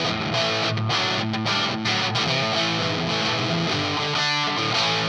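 Electric guitar played through a Sola Sound Mk IV Tone Bender 'Esprit Blanc' fuzz pedal, a run of chords and notes with the guitar's volume rolled back so the fuzz cleans up to a lighter, edgier crunch.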